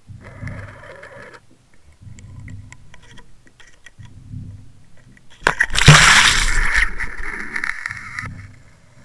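Water sloshing and rushing past a Water Wolf HD underwater fishing camera as it is pulled through the water, in low rumbling pulses about every two seconds. About five and a half seconds in, a sudden loud splash churns on for two to three seconds before fading.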